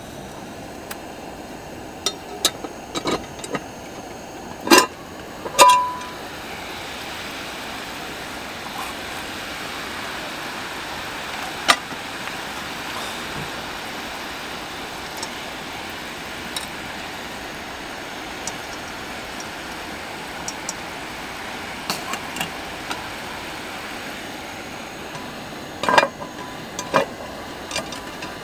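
Steady hiss of a gas camping stove and chicken sizzling in a cast-iron micro oval Dutch oven, broken by sharp metal clinks and clanks of the cast-iron lid and the tongs: a ringing clank about five seconds in as the lid comes off, a tap of the tongs now and then, and more clanks near the end as the lid goes back on with a lid lifter.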